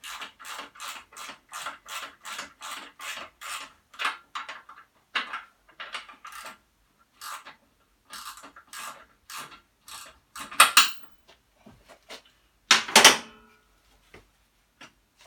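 Hand ratchet working a motorcycle engine mounting bolt loose, clicking at about four strokes a second, then in slower, uneven strokes. Two loud metallic clanks come near the end.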